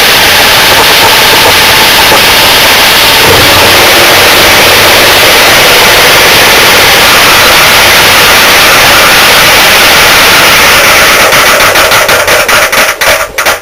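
LG Intellowasher front-loading washing machine running its drum hard, a loud steady racket that overloads the microphone. Near the end it breaks into knocks that come further and further apart as the drum winds down, its already-damaged drive plate having given out.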